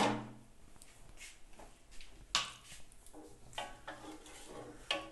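An aluminium cooking pot clanks down onto the gas stove's grate. A spoon then stirs thick carrot halwa in the pot, with a few scrapes and knocks against its side.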